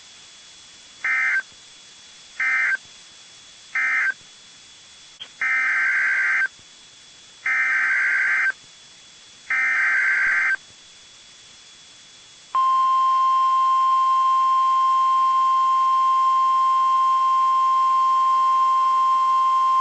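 NOAA Weather Radio SAME data tones: three short bursts of warbling data (the end-of-message code), then three longer bursts (the header of a new alert). About two-thirds of the way in, a loud steady 1050 Hz weather radio warning alert tone starts and holds.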